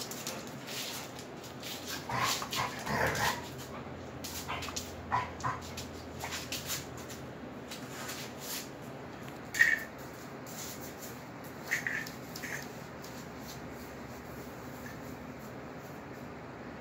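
Two Rhodesian ridgebacks, an adult and a young puppy, play-wrestling: bursts of scuffling and short dog vocal noises over the first several seconds, a sharp high yip about ten seconds in and a couple more around twelve seconds, then the play goes quiet.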